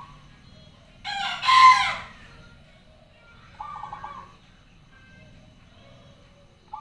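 A rooster crows once, loudly, about a second in. Between crows a zebra dove repeats a short, rapid pulsed cooing phrase every three seconds or so.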